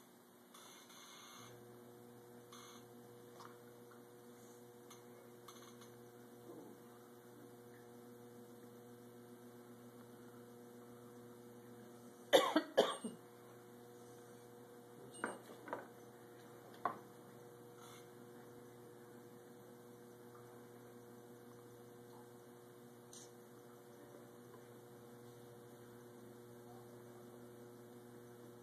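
Electric potter's wheel motor humming steadily, switched on about a second in, while a large clay plate is thrown. Near the middle comes a short cough, followed by a few smaller knocks.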